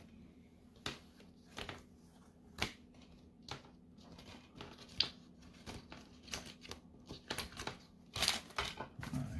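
Plastic Blu-ray case and clear plastic wrapping being handled: irregular sharp clicks and crinkles, with a busier run of them near the end.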